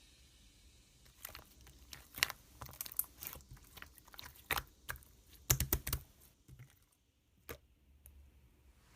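Slime being squeezed and poked by hand, giving irregular sharp little pops and crackles for about six seconds, then a near pause with one more click.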